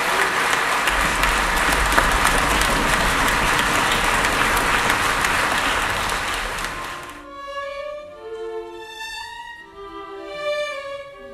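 Audience applauding steadily, cut off abruptly about seven seconds in and replaced by soft orchestral music led by bowed strings, held notes moving slowly from one to the next.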